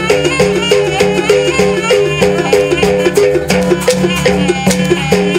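Traditional East Javanese jaranan dance music: a percussion ensemble plays a fast repeating pitched figure of about four notes a second over a held low tone, with a wavering high melody line above.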